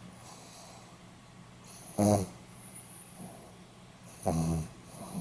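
A Pomeranian snoring in its sleep: two short, buzzy pitched snores, about two seconds apart.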